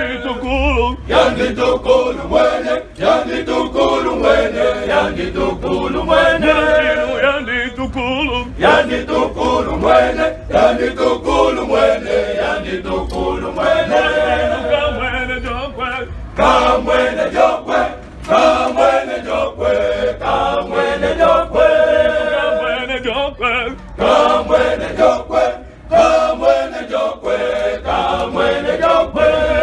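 Young men's choir singing a hymn unaccompanied, several voices together, with brief breaks between phrases.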